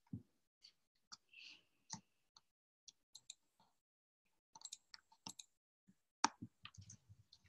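Faint, irregular clicks and light taps, with a brief soft squeak about one and a half seconds in and a denser run of clicks about five seconds in.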